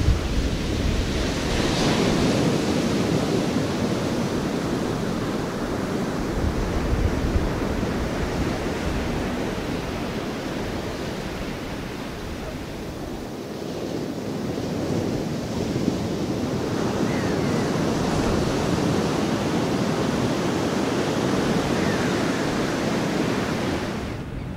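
Ocean surf: waves breaking and washing in, the rush swelling and easing over several seconds, with wind.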